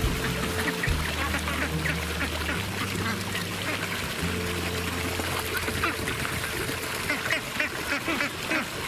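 A group of mallard-type ducks quacking in many short calls, over background music with long held low notes that fade out about six seconds in.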